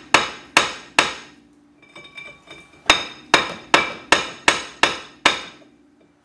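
Hammer tapping the back of a rusted cast-iron brake rotor that is seized to the hub of a 1988 Pontiac Fiero, the disc ringing after each blow. Three blows, a short pause, then a steady run of about seven blows, two or three a second. The rotor stays stuck.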